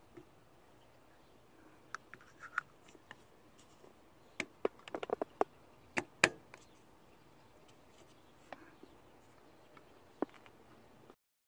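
Sharp plastic clicks and taps from a brake fluid reservoir's strainer cup and screw cap being handled and the cap screwed back on, a quick cluster of clicks in the middle with the loudest about six seconds in. The sound cuts to silence near the end.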